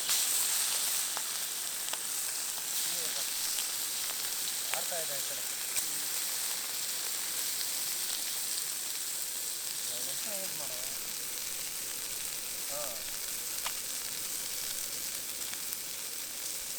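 Chicken frying in hot oil in a pan, a steady sizzle with a few sharp spatters.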